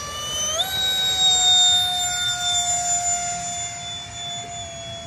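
Electric ducted-fan model jet (a Habu) whining at full power on its takeoff run and climb-out. The pitch steps up about half a second in, then holds steady and slowly fades as the jet climbs away.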